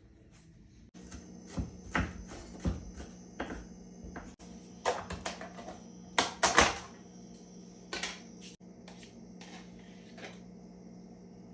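Irregular sharp clicks and knocks of small hard objects being handled, some in quick pairs with the loudest near the middle, over a steady hum in a small room.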